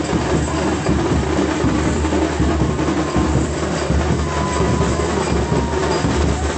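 Loud, dense drumming mixed with crowd noise: a continuous clatter with no clear beat. A faint thin tone sounds briefly past the middle.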